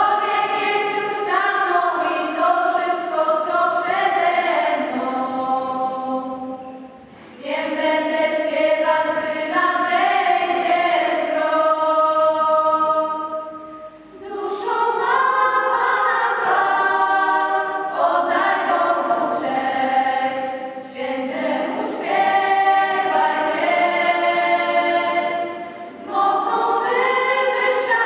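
Mixed choir of teenage girls and boys singing together under a conductor, in long phrases with short breath pauses about every seven seconds.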